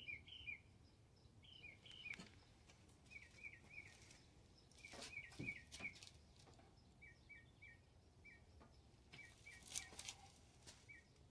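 Faint chirping of a small bird, short high chirps in quick groups of two or three, repeating every second or so. A few soft rustles and knocks of someone moving close by.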